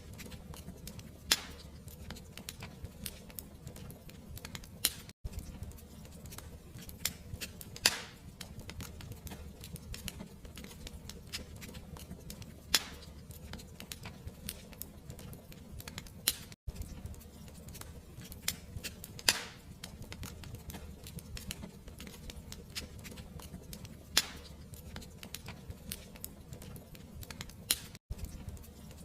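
Fire crackling: a steady run of small crackles and a few sharper pops over a low, steady rumble of flames. The sound drops out for an instant three times.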